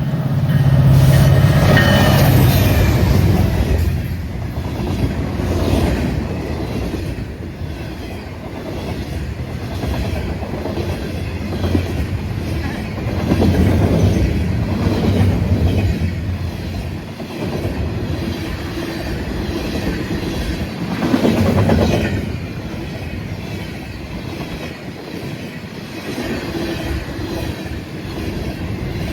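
CN freight train passing close by. It is loudest about a second in with the locomotive's low engine note, then the cars roll by in swells of steel-wheel noise that rise and fall every few seconds.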